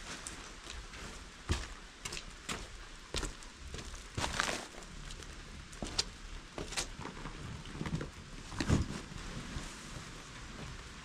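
Steady hiss of light rain, with scattered rustles and knocks of plastic bags and camping gear being handled and packed.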